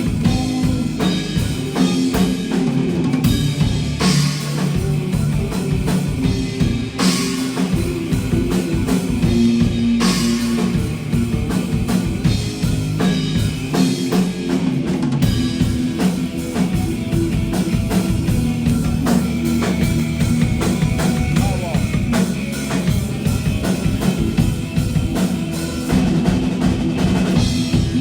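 Live rock band playing an instrumental passage, with the drum kit to the fore: a driving beat, cymbal crashes at intervals, and guitar and bass underneath.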